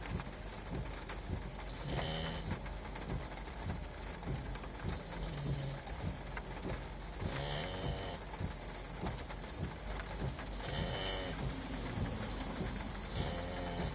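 English bulldog puppy snoring in his sleep, a rasping snore about every two to three seconds, with rain hissing steadily behind it.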